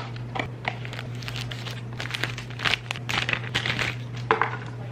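Packaging crinkling and rustling in irregular bursts as it is handled and unwrapped, over a steady low hum.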